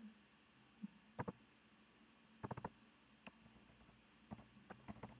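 Faint computer keyboard keystrokes as digits are typed: a few scattered key clicks, some coming in quick runs of two or three.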